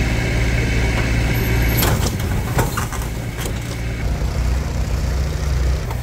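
A motor vehicle engine running steadily, with scattered clicks and knocks.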